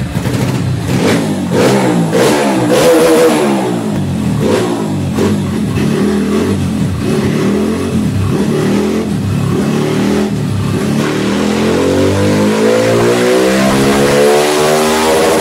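Single-cylinder Honda 160 motorcycle engine, bored to 186 cc and fitted with a CB300 throttle body, at full throttle on a chassis dynamometer in fifth gear, pulled from low revs. Its pitch rises steadily through the second half as it climbs the rev range.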